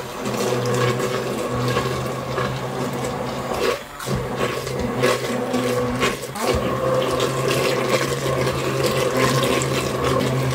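Stainless-steel immersion (stick) blender running in a pot of cooked butternut squash soup, a steady motor hum over the churning of the soup as the chunks are pureed. It starts abruptly and dips briefly about four seconds in and again just after six.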